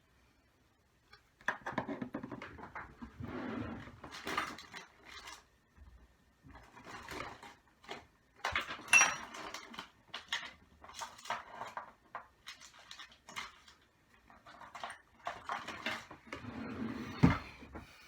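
Hand tools and small metal parts of an O.S. Speed 21XZ-R model nitro engine clicking, scraping and rattling on a work surface during disassembly, in irregular clusters with a sharp knock near the end.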